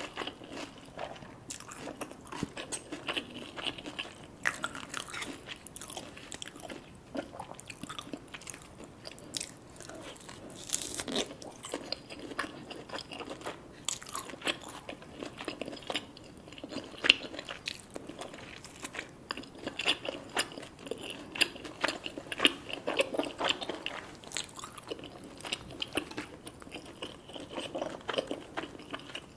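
Close-up eating sounds: crunchy bites and chewing of deep-fried food, with many irregular crackles.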